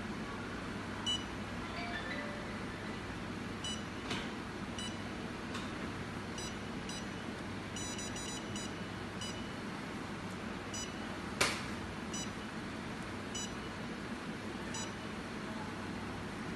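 Touchscreen control panel of a bubble/oxygen facial beauty machine giving short high beeps as its buttons are pressed, singly and in a quick run of several about halfway through. A steady low hum runs underneath, and one louder click comes about two-thirds of the way in.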